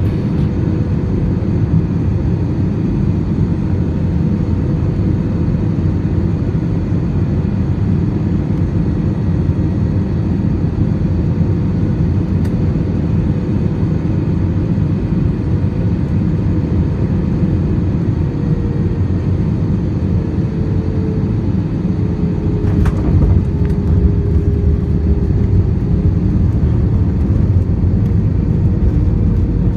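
Steady low rumble of an Airbus A320's engines and airflow heard inside the cabin, with a faint steady hum above it that dips slightly in pitch past the middle. A short knock comes about two-thirds of the way through, after which the rumble is a little louder.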